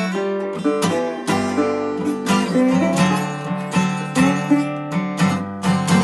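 Acoustic guitar playing an instrumental blues break, picked notes and strums on a steady beat.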